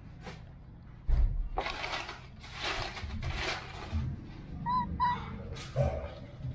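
Baby macaque giving two short, high squeaks in quick succession about five seconds in. A loud thump comes about a second in, and bursts of noise follow before the squeaks.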